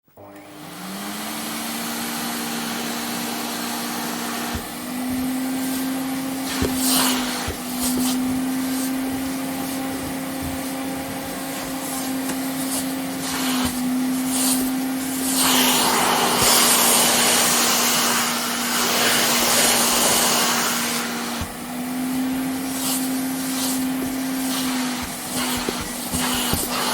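Vacuum cleaner switched on, its motor spinning up to a steady whine within the first second, then running with small shifts in pitch as it is worked. A louder rush of air comes in the middle, with occasional knocks.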